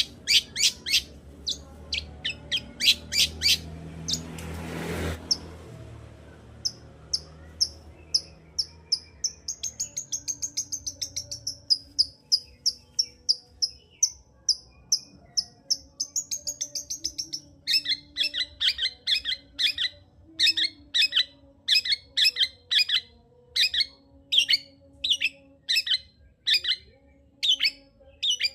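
Long-tailed shrike singing: a run of sharp, clipped notes, then a high wavering trill, then a fast series of harsh chattering notes at about two a second. A brief rushing hiss comes about five seconds in.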